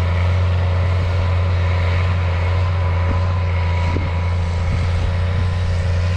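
A vehicle engine running steadily: an even low drone with a faint steady whine above it.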